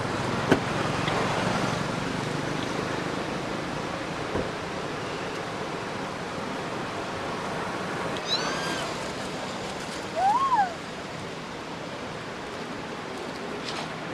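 A monkey's call, a single short coo that rises and falls in pitch, stands out about ten seconds in over a steady outdoor hiss, with a shorter chirpy call a couple of seconds before it. There is a sharp click about half a second in.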